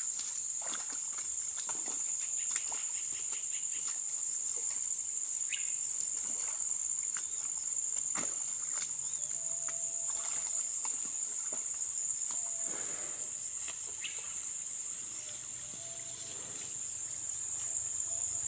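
Insects droning steadily at one high pitch, with scattered short rustles and knocks from a person stepping through grass and mud.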